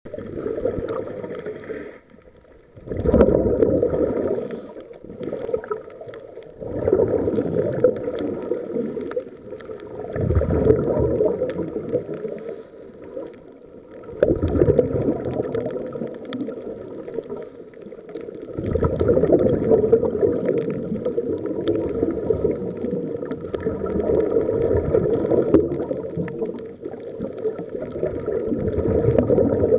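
Scuba regulator breathing heard underwater: muffled rushing and gurgling of exhaled bubbles, surging every few seconds.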